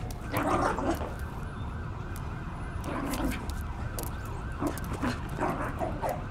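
A siren in the street beyond, going in quick repeated up-and-down sweeps (a yelp pattern). A few short louder sounds break in over it, near the start and again around the middle.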